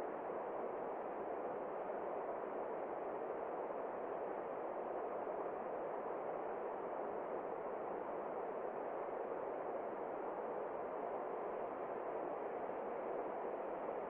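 Rushing water of a rocky stream or rapids: a steady, even rush that does not change.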